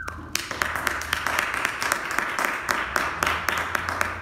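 Audience applauding: many hand claps begin a moment in and keep up steadily.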